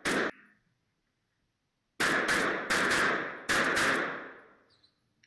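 Gunshots from a 9mm Glock 34 Gen 4 pistol fitted in a KPOS G2 pistol-to-carbine conversion: one shot, then after a short pause a quick string of about six shots. Each shot rings out in the reverberant concrete indoor range.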